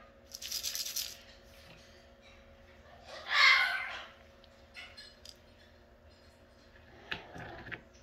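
Double yellow-headed Amazon parrot vocalizing: a short rattling sound near the start, then one louder call about three and a half seconds in, with a few faint clicks near the end.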